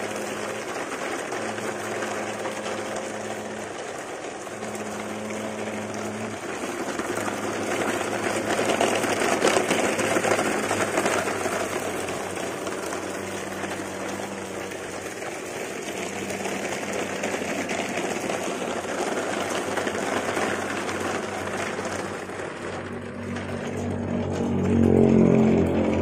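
Plastic toy dump trucks being towed on a string over dirt and gravel, their plastic wheels and bodies rattling and crunching over the ground. A low droning hum swells near the end.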